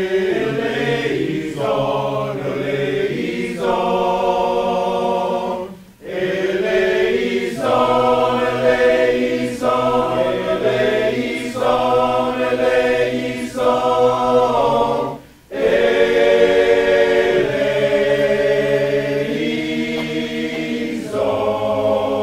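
Men's choir singing unaccompanied in harmony, holding long chords, with two brief breaks between phrases about six and fifteen seconds in.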